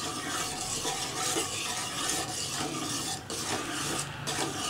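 Metal ladle stirring boiling rice porridge in a steel pot as a ragi and pearl millet flour slurry is poured in, a steady wet churning. The porridge is stirred without pause so the flour does not form lumps.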